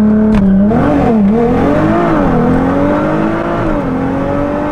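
Nissan GT-R's twin-turbo V6 engine running loud under acceleration. Its note wavers at first, then climbs steadily, dips briefly near the end and climbs again. A single short click sounds just after the start.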